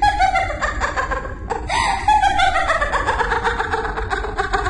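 An acted witch's voice in a horror audio drama: high, shrill and nasal, speaking in snickering, laughing bursts whose pitch keeps sliding down.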